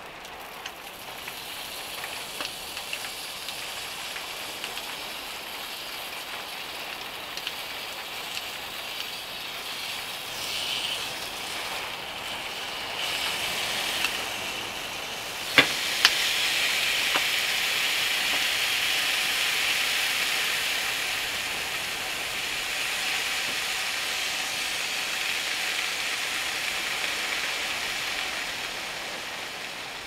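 Ham and an egg frying in a pan on a portable gas stove: a steady sizzle that gets louder from about halfway through, just after two sharp clicks.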